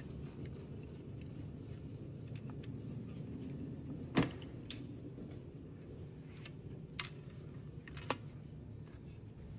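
Scattered clicks and small knocks as a locker box is fitted onto a mini crane machine and its screws are set with a small screwdriver, over a steady low hum. The sharpest knock comes about four seconds in, and there are two more near the end.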